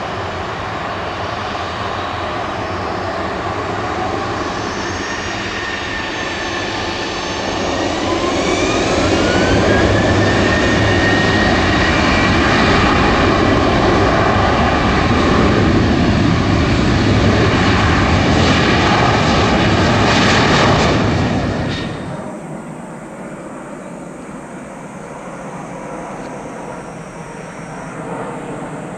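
Boeing 737-800's twin turbofan engines spooling up, a whine gliding upward, then running loud and steady at high thrust as the jet rolls. About two-thirds through, the sound cuts off suddenly to a fainter, distant jet.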